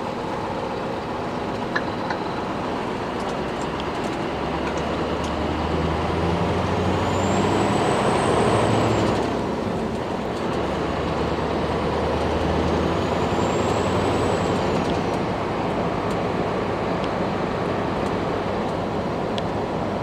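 Scania R620's V8 diesel engine running, pulling harder twice for about five seconds each, from about four seconds in and again from about ten seconds in. A faint high whistle rises and falls during each pull.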